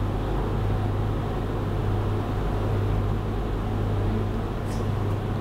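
Steady low hum with a hiss over it, the room's background noise. A faint brief scratch comes near the end.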